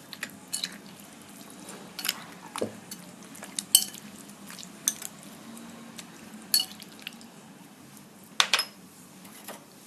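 Spoon clinking and tapping against a bowl at irregular moments while spice powders are measured into the mutton marinade, over a faint steady low hum.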